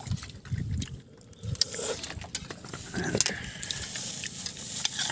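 Metal spoon clinking and scraping on a plate while rice and fish are eaten: scattered light clicks over a low rumble.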